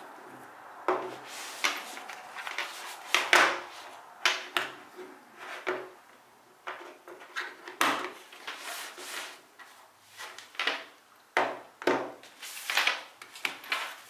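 Small plastic travel items being set down one by one on a hard tabletop, giving a string of sharp clicks and taps, with rustling from handling a mesh zip pouch between them.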